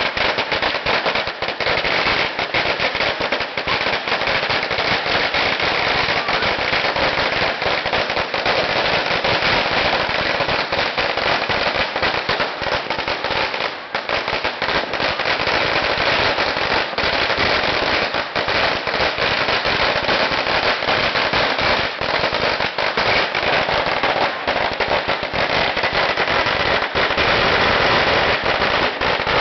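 A huge string of firecrackers laid along the pavement going off in a continuous, dense rattle of rapid bangs, thinning for a moment about halfway through.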